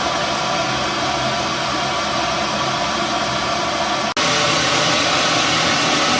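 Loud steady rushing noise with a faint hum running through it, broken by a sudden split-second dropout about four seconds in.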